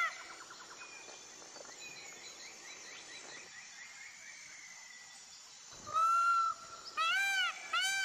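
Indian peafowl calling. About six seconds in, one loud drawn-out call, then a fast run of short rising-and-falling calls, about two a second. Before that, only faint outdoor background with a few soft bird chirps.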